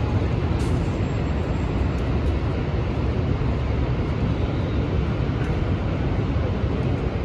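Steady, deep rushing noise of falling water from Niagara's American Falls, even and unbroken.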